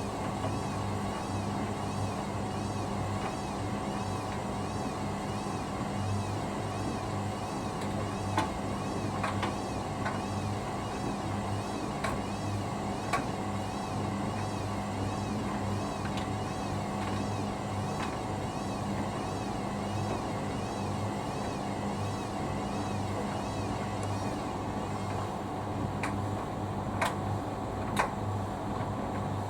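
Hoover Dynamic Next front-loading washing machine running its main wash, the motor turning the drum with a steady hum. A few short sharp clicks stand out over it, two close together near the end.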